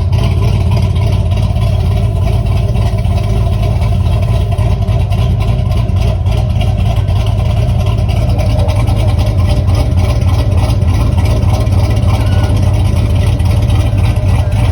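Chevy car engine running steadily, a loud, even low hum.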